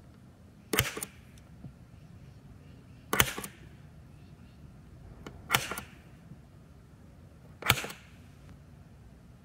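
Spring-loaded center punch snapping four times, about every two and a half seconds, each a sharp click with a brief rattle, as it dimples rivet-hole locations along a scribed line on an aluminum hinge and panel.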